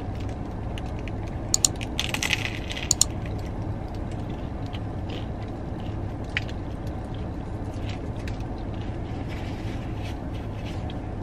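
A big bite into a sub sandwich on seeded bread, crackling and crunching for a second or two about two seconds in, then quieter close-up chewing with small scattered clicks over a steady low hum.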